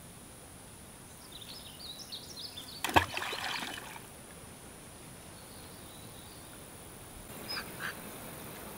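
Riverbank ambience under a steady high hiss: a bird chirps a quick run of short high notes, then a single sharp knock about three seconds in, followed by a brief rush of noise and two small clicks near the end.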